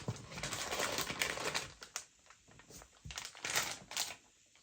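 Plastic food wrappers crinkling as packaged snacks are handled and lifted out of a box. There is a long spell of crinkling at the start, then a shorter burst about three and a half seconds in.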